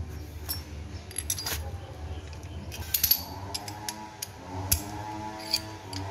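Irregular sharp metallic clinks and clicks of a wrench and small parts against the cylinder head of a Modenas ACE 115 engine, as the head bolts are worked during a top-end strip-down.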